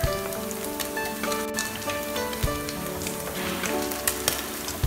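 Climbing perch frying in hot oil in a pan, a steady sizzle with scattered small pops and clicks as the crisp-fried pieces are lifted out with chopsticks.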